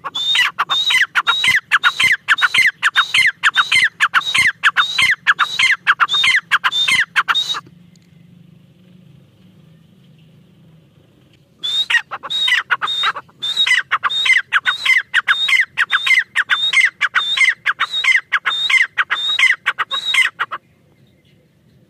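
Teetar (partridge) calling: rapid runs of sharp, downward-sweeping notes, about three a second. The calls come in two long bouts, the first stopping about seven and a half seconds in and the second starting some four seconds later, over a faint low hum.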